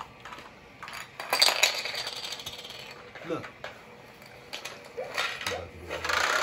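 LeapFrog Pick Up and Count toy vacuum pushed over a wooden floor. Its plastic wheels and the little balls in its clear chamber click and rattle, in a burst about a second in and again near the end.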